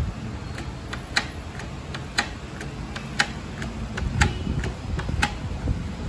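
Canon iP2870S inkjet printer's mechanism clicking in a regular rhythm: a sharp click about once a second with fainter ticks between, over a low rumble.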